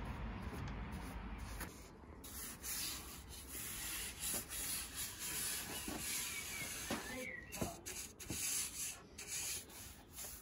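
A paintbrush swishing in repeated strokes along pine boards, brushing on wood preservative.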